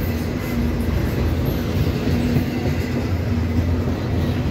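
CSX double-stack intermodal freight train's well cars rolling past, with a steady rumble of steel wheels on the rails.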